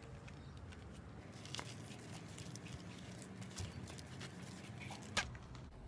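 Faint soft pats and small crackles of a flip-flop sole tapping and pressing on a small white lump on concrete, heard as a scatter of light clicks, with one louder click about five seconds in.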